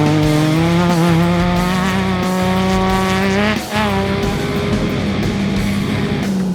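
Off-road race vehicle's engine accelerating hard, pitch climbing steadily, with a brief break and flare in the revs about three and a half seconds in as it shifts gear, then pulling on, with rock music underneath.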